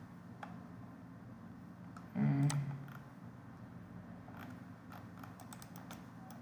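Scattered computer mouse clicks, a few spread out and then several in quick succession near the end, over a steady low background hum. A brief vocal sound about two seconds in is the loudest thing.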